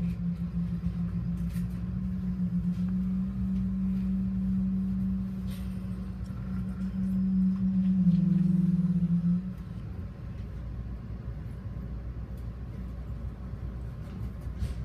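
MBTA diesel commuter train heard from inside a passenger coach as it slows into a station: a steady running rumble with a low hum that cuts off about nine and a half seconds in, leaving a quieter rumble, with a few faint clicks.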